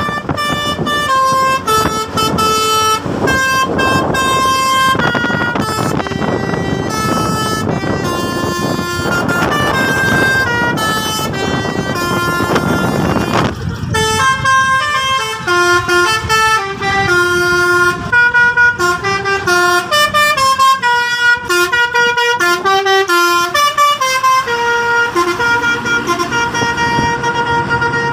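Telolet bus horn, a multi-trumpet air horn, playing a melody of held notes that step from pitch to pitch. A noisy rumble runs under the first half and stops about halfway through, after which the notes come shorter and faster.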